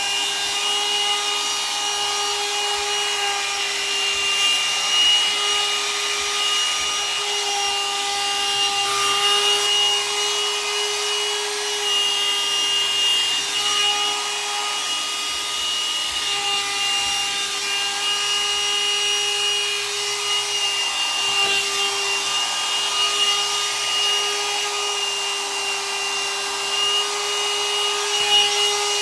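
Hot air brush (a dryer brush) running steadily as it is worked through hair: a steady motor whine over a rush of air, its pitch dipping slightly now and then.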